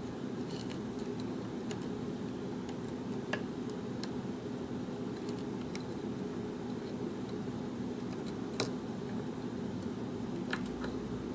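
A few faint, scattered metallic clicks and taps of a lock pick and tension tool working the pins of a Kwikset-keyway pin-tumbler lock, the sharpest about three-quarters of the way through, over a steady low hum.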